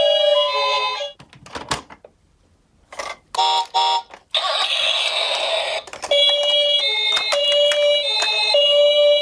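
Toy ambulance minicars' electronic two-tone hi-lo sirens sounding: the siren stops about a second in. Clicks, a short near-silent pause, a brief electronic tone and a hissy burst follow, then the two-tone siren starts again about six seconds in and keeps alternating.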